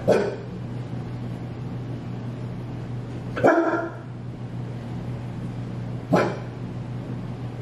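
Bernese mountain dog barking: three single barks a few seconds apart, the middle one the longest and loudest.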